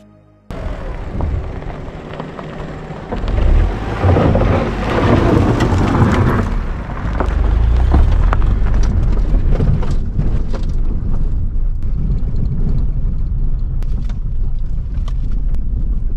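Strong wind buffeting the microphone, a loud low rumble that starts abruptly, with surf washing in behind it and a louder swell of noise a few seconds in.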